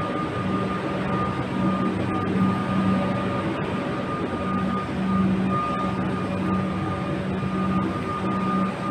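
Electric suburban train humming steadily, with a steady high whine and a lower hum that drops in and out.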